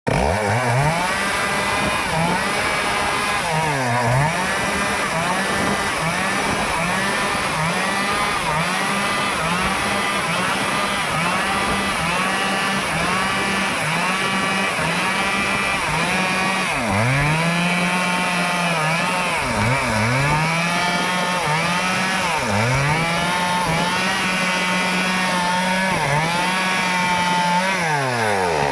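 Stihl chainsaw running hard through teak wood. The engine pitch dips and recovers about once a second as the chain bites and clears the cut, then falls away near the end.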